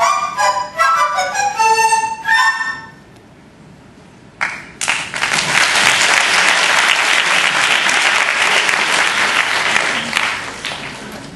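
Three dizi, Chinese bamboo flutes, play the last notes of a trio, then after a short pause the audience applauds, dying away near the end.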